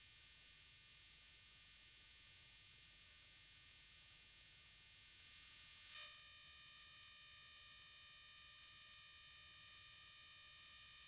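Near silence: a faint steady hiss and electronic hum, with one faint click about six seconds in.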